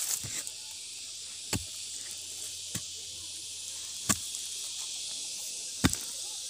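A hand hoe striking soil in a series of short, dull thuds about one to two seconds apart, over a steady high-pitched hiss of insects.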